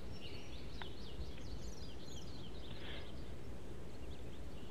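Birdsong ambience: a quick run of high chirping, sweeping notes over a steady low background noise, busiest in the first three seconds.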